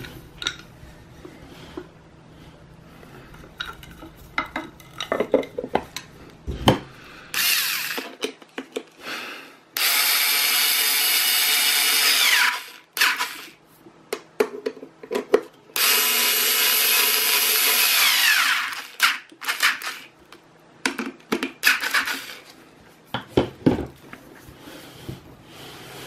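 Cordless power screwdriver driving in the screws that close the call button's housing. It runs in bursts of a couple of seconds, three of them, and drops in pitch as each run stops. Between the runs come clicks and knocks of the casing being handled.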